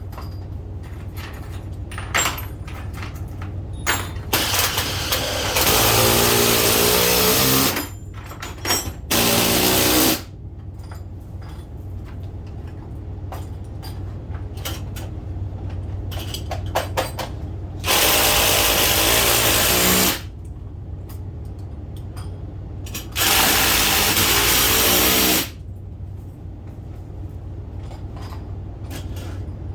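Power drill run in four bursts of about two seconds each, driving fasteners into the wood framing around a door opening. Scattered clicks and knocks fall between the bursts, over a steady low hum.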